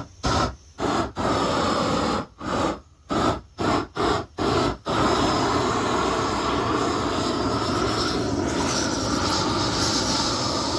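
Hose-fed propane torch flame blowing in about eight short bursts over the first five seconds, then burning continuously as it scorches the loose fibres off freshly carved wood.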